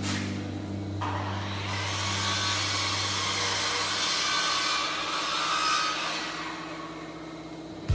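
Saw cutting through wood, a steady rasping noise that starts about a second in and fades away near the end.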